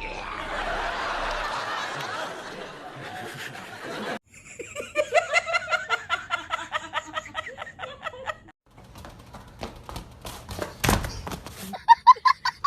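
Laughter: a long run of rapid, rhythmic ha-ha pulses, after a first few seconds of noisier sound.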